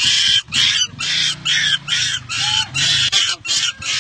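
A young monkey screeching in a rapid series of shrill cries, about ten in four seconds, with a motorcycle engine running low underneath.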